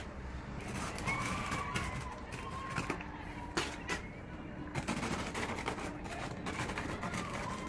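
Fast-forwarded sounds of mosaic grouting work: a scattered run of sharp clicks and knocks from hand tools on the mosaic and mortar bucket, with a few brief chirp-like squeaks.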